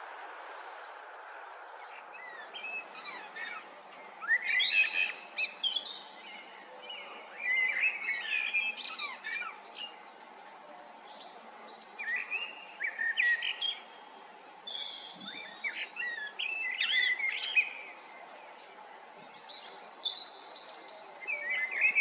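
Birds chirping and twittering in short bursts of quick high notes every few seconds, over a steady outdoor hiss.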